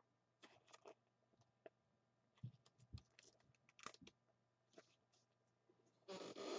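Faint handling noise: scattered small clicks and scratches, with a short louder rustle near the end, as trading cards and packaging are handled.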